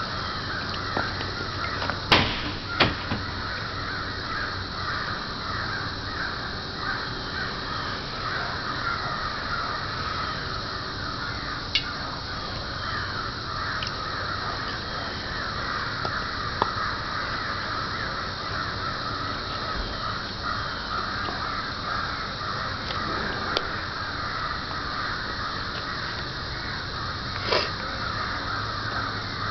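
A steady chorus of birds calling and chattering, with a few sharp knocks and clicks, the loudest about two seconds in.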